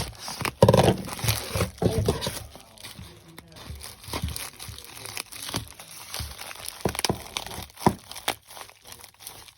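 Packaging crinkling and rustling by hand as a packed-away Lego set is unwrapped, with many small irregular clicks and knocks. It is busiest in the first couple of seconds, then lighter handling noise follows.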